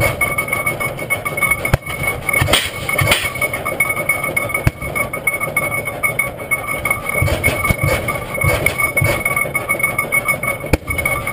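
1908 Hart-Parr 30-60 tractor's big two-cylinder engine running slowly with uneven low exhaust beats, broken by occasional sharp metallic clicks and clanks, over a steady high whine.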